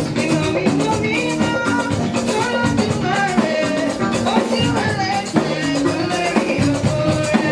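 Live church music with drums and shaken percussion, and singing voices over it.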